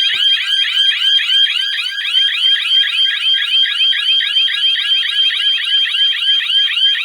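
Four wireless alarm hooters on a Secureye S-AL370 GSM alarm panel sounding together, set off by a shorted zone input. They make a loud, rapid electronic warble that repeats about seven times a second.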